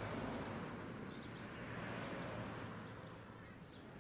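Outdoor ambience of birds chirping: a string of short, high chirps over a steady background hiss.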